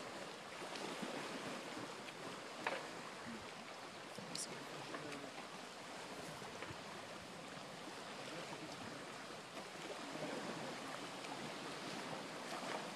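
Small lake waves lapping and splashing against a stone break wall, with a sharp knock about three seconds in.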